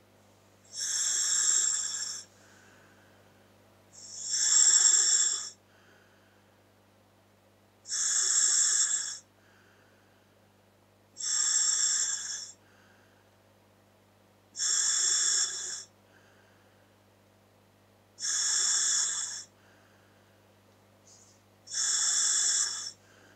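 Breathing through a scuba regulator by way of a Dräger full-face mask: seven breaths about three and a half seconds apart, each a loud hiss lasting about a second, with faint softer sounds between them.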